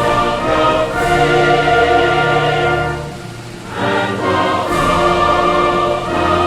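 Background orchestral music with choir, sustained chords that swell, dip briefly near the middle and rise again.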